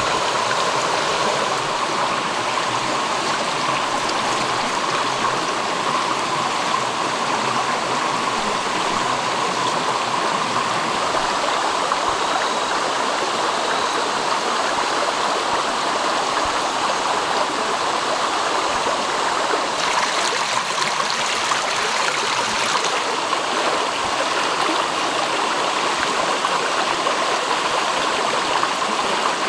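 Flowing stream, a steady, unbroken rush of water.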